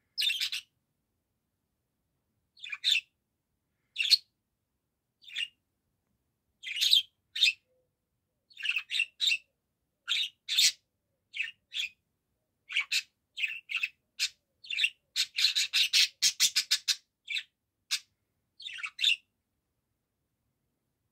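Budgerigar chirping in short, high calls, a few at a time at first, then a quick run of chirps about three quarters of the way through, stopping shortly before the end.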